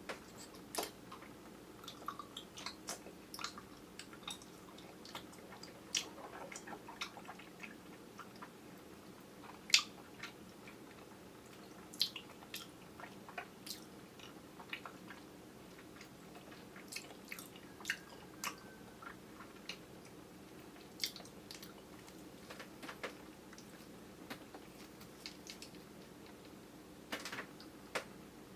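Mouth chewing soft, chewy grape jelly: irregular wet smacks and clicks over a faint steady hum, picked up by a camera's built-in microphone.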